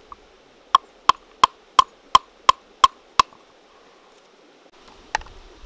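Knife chopping through a peeled root on a wooden chopping board: eight sharp, even chops about three a second, then one lighter knock near the end.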